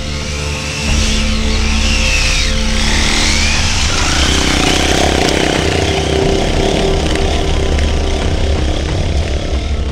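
Small enduro motorcycle engine revving up and down as the bike rides past over rough forest ground, with background music underneath.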